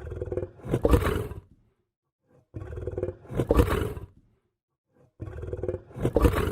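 Lion growling three times, each growl deep and rough, about a second and a half long and swelling louder toward its end, with short silent pauses between.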